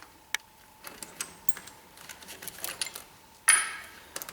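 Metal tools and parts clicking and clinking against each other, with one loud metallic clank that rings briefly about three and a half seconds in.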